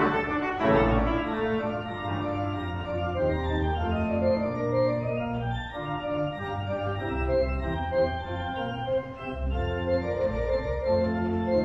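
Pipe organ music: slow-moving held chords over long, low bass notes.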